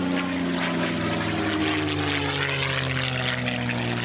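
P-51 Mustang's V-12 piston engine and propeller running at high power in a flyby, the pitch falling steadily as the plane passes.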